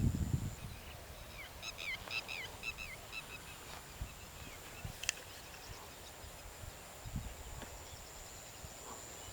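Outdoor ambience: a bird gives a quick run of short chirps between about one and a half and three seconds in, over a steady high-pitched insect drone. A single sharp click comes about five seconds in.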